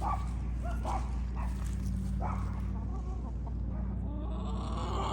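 A few short animal calls scattered through the first half, over a steady low hum.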